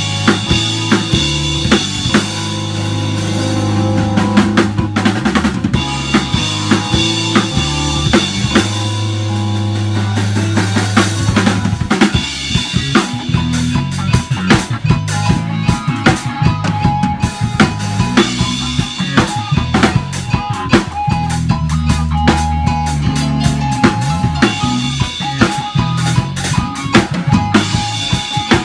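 Live band rehearsal: a drum kit with cymbals played together with an electric keyboard and guitars, over a bass line stepping from note to note. The music is instrumental, with no singing.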